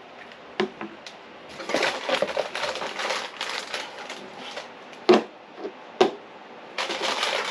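Plastic bags of Lego pieces crinkling and rattling as they are handled, with a few sharp knocks as items are set down.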